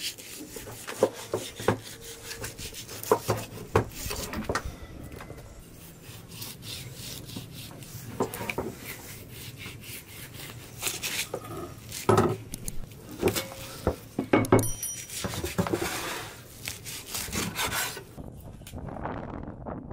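Large knife cutting up a lamb carcass on a wooden board: scraping, rasping strokes through the meat with irregular sharp knocks of the blade and meat against the board.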